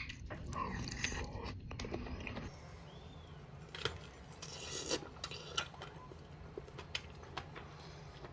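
Faint close-miked eating of a seafood boil: soft chewing with scattered small clicks and taps over a low steady hum.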